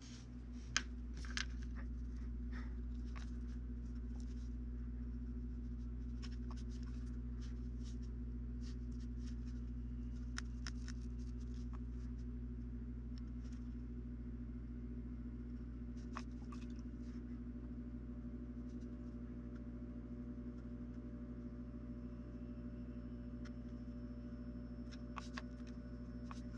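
Faint light ticks and scrapes of small metal sculpting tools working oil-based clay on a wooden board, scattered irregularly, over a steady low hum.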